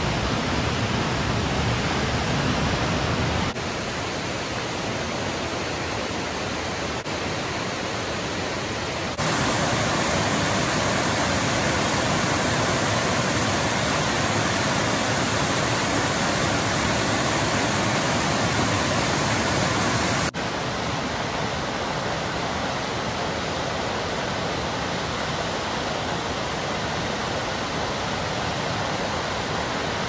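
Waterfall and cascade rushing: a steady, dense wash of falling water from a creek running high after a night of rain. The loudness steps down, up, then down again at a few abrupt cuts.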